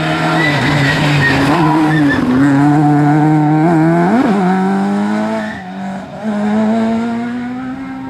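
Fiat Grande Punto rally car driven hard on a gravel stage: the engine runs at high revs over the hiss of spraying gravel. The revs dip and pick up again as it shifts. It fades as the car pulls away near the end.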